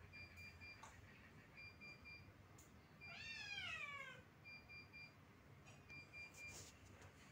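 A cat meowing once, a single call about three seconds in that falls in pitch, over a faint high pulsing beep that repeats about every second and a half.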